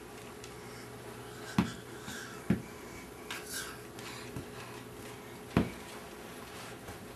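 A child's toy broom knocking on a wooden floor: three sharp knocks, two close together about a second and a half in and one more near the end, with softer scuffs between.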